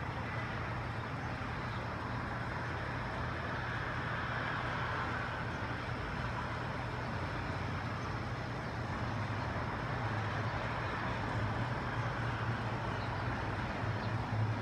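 Steady distant traffic and town noise, an even rumble with a low hum underneath and no distinct events.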